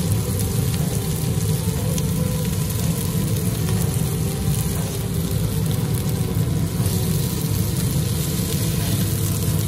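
Chicken, peppers and onions sizzling steadily in a hot wok, over a constant low rumble from the stove.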